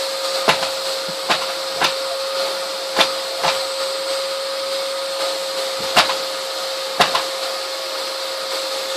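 Vacuum cleaner running steadily with a constant whine, broken by about seven sharp knocks at uneven intervals as it is pushed about the floor.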